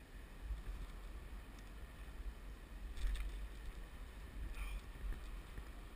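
Muffled low rumble from an action camera being moved in its housing, with two brief hissing rustles about three and four and a half seconds in.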